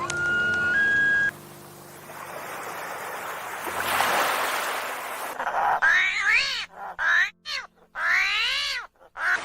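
A cat meowing four or five times in quick succession, each meow rising and falling in pitch, in the second half. Before the meows come a brief steady whistle-like tone that steps up in pitch, then a rising and falling hiss.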